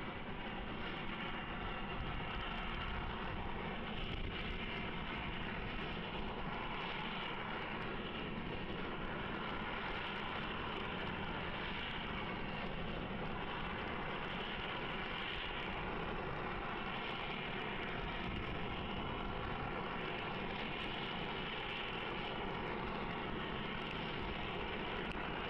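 Heavy railway snow-clearing machine running with a steady, unbroken engine drone.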